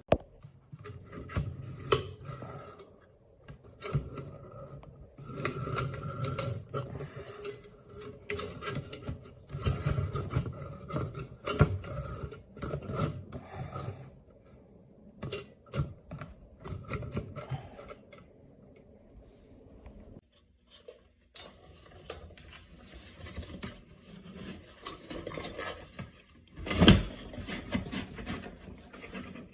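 Handling noises of an LED retrofit recessed can light and its spring mounts: irregular scraping, rubbing and clicks, with one loud knock near the end.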